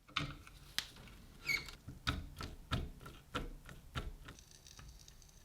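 A series of about ten sharp clicks and knocks of hard objects, irregularly spaced, dying away after about four seconds.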